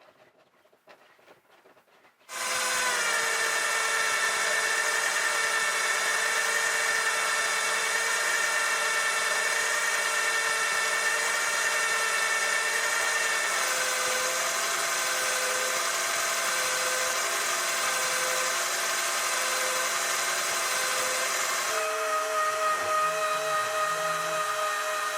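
An electric power tool starts up about two seconds in and runs steadily with a whine of several held tones, its pitch shifting about eleven seconds later and again near the end.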